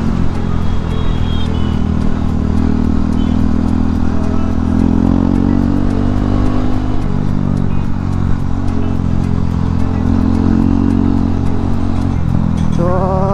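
Hero Xpulse 200's single-cylinder engine running while the motorcycle is ridden, its pitch rising and falling a little with the throttle.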